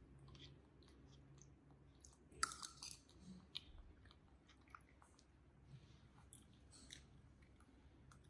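Faint eating sounds: a metal spoon scooping grass jelly from a cup, with small scattered clicks of chewing and a louder cluster of clicks about two and a half seconds in.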